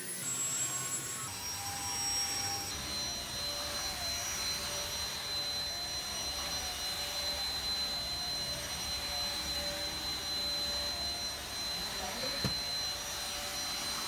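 Airbot cordless stick vacuum running, a steady motor hum with a high-pitched whine that shifts in pitch for the first few seconds and then holds steady.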